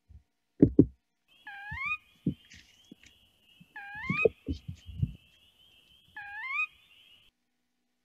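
Sora giving its per-weep contact call three times, each a whistled note rising in pitch, a little over two seconds apart. Low thumps come just before the first call and between the calls, the loudest two just before it.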